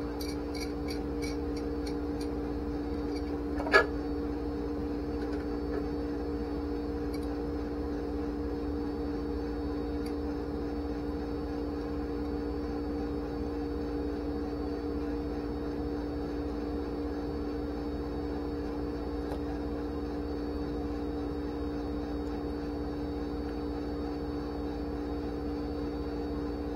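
A steady hum holding two tones over a low rumble, with one sharp knock about four seconds in and a few faint ticks before it.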